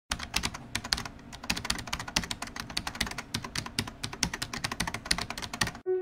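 Typing on a computer keyboard: fast, irregular key clicks that stop suddenly near the end.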